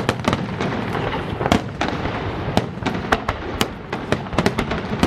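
Fireworks display finale: a dense, continuous crackle and rumble of bursting shells, punctuated by many sharp, irregularly spaced bangs.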